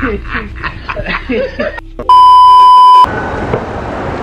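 Two men laughing hard in rapid pulses, then about two seconds in a loud, steady edited-in bleep tone lasting about a second. It cuts off into the even background hubbub of a shopping mall.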